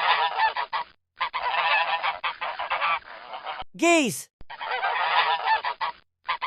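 A flock of geese honking and cackling, many birds at once, in three stretches of one to two and a half seconds each, with short breaks between them.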